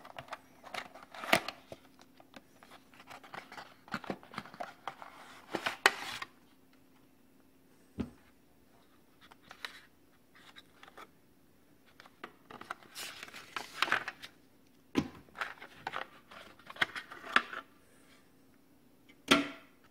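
An SSD's cardboard retail box and black plastic packing tray being handled as the drive is opened up and lifted out: irregular rustling and scraping with a few sharp plastic clicks and knocks, the loudest near the end.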